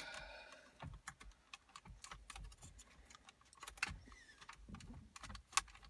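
Faint, scattered clicks and rattles of plastic dashboard trim and a wiring-harness connector as they are handled and wiggled to free the connector's captive pin. A couple of the clicks, about four and five and a half seconds in, are louder.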